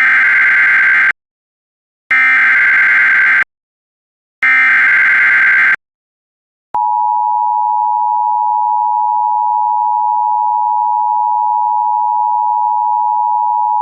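Emergency Alert System SAME header: three bursts of screechy data tones, each about a second long with a pause between, marking the start of a new alert. About seven seconds in, the steady two-tone EAS attention signal begins and holds.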